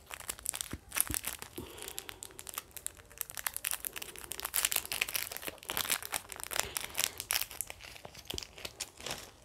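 Crinkling and rustling of a small plastic jewellery packet being opened and handled by fingers: a dense, uneven run of little crackles that stops near the end.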